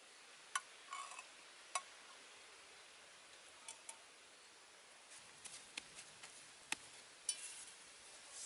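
A few faint, sharp ticks and clicks, spaced irregularly over a quiet background hiss, with a slightly louder pair of clicks near the end.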